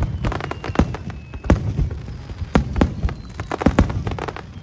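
Fireworks finale: a rapid, irregular string of bangs and crackles from bursting aerial shells, with faint falling whistles threading between them.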